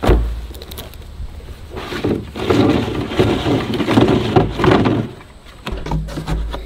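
A black plastic barrel thuds down on the dirt, then hands rub and scrape at its plastic top and lid for a few seconds.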